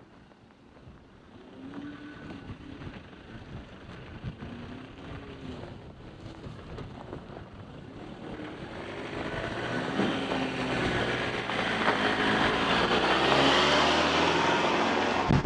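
A 2015 Ford Ranger T6 pickup's 2.2-litre turbo-diesel engine pulling at low speed over rough dirt track, its pitch rising and falling as the throttle changes. Faint at first, it grows steadily louder as the truck comes close and passes, loudest near the end.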